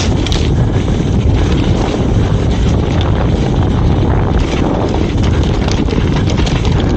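Wind buffeting the microphone of a helmet-mounted camera as a downhill mountain bike runs fast down a dirt trail. The bike's tyres rumble over the ground, with scattered clicks and rattles from the bike over bumps.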